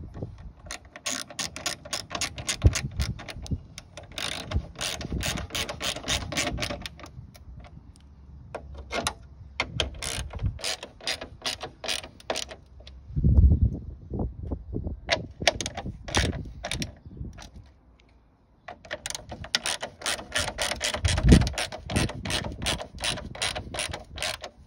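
Small hand ratchet with an 8 mm socket clicking in several quick runs, with short pauses between, as it tightens the screws holding a plastic front grille. A couple of dull knocks are heard along the way.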